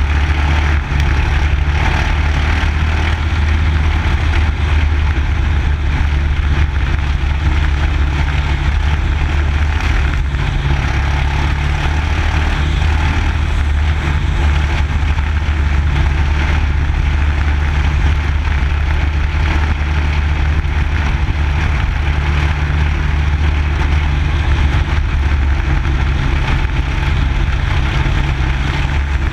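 Mini late model race car's engine running steadily at speed while circling a dirt oval, heard from a camera mounted on the car's hood.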